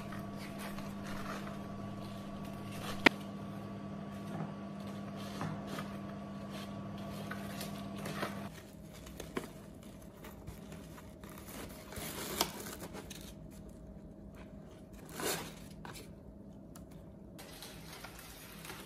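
Paper wrapping and jute twine being handled and tied round a bouquet: soft rustles and scattered clicks, with one sharp click about three seconds in. A steady low hum sits underneath and stops about eight seconds in.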